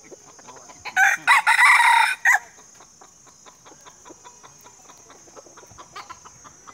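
A rooster crows once: a single crow about a second and a half long, starting about a second in.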